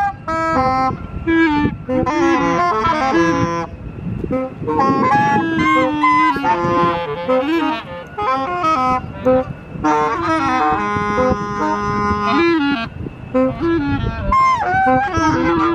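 Free improvisation on reed instruments: several overlapping lines of short notes and pitch bends, with two long held tones about two-thirds of the way through.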